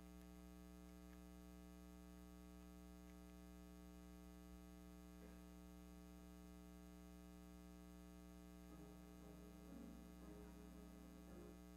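Steady electrical mains hum at a low level. A grand piano starts to play softly about nine seconds in.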